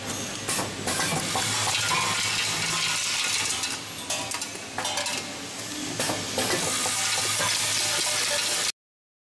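Screw counting and packing machine running: metal screws rattle and clink densely over a steady low hum. The sound cuts off suddenly near the end.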